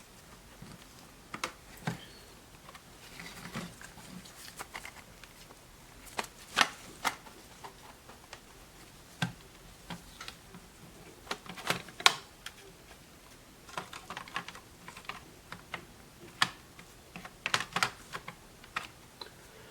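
Irregular light clicks and taps of a portable multitrack recorder's casing and small parts being handled and fitted back together, the sharpest click about twelve seconds in.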